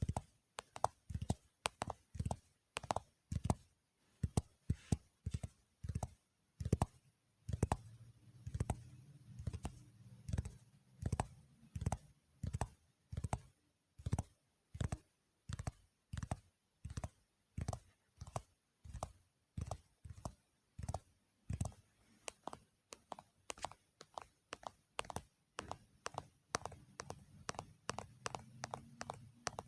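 Fingers tapping and clicking on objects in a steady run of sharp, light taps, a few a second.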